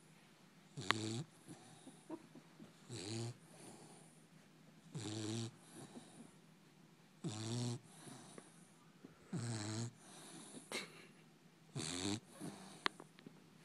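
Sleeping puppy snoring: six short, pitched snores at an even pace of about one every two seconds.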